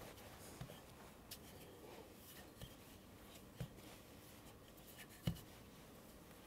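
Faint rubbing and a few soft knocks as a wooden rolling pin rolls out biscuit dough on a floured wooden board. The loudest knock comes about five seconds in.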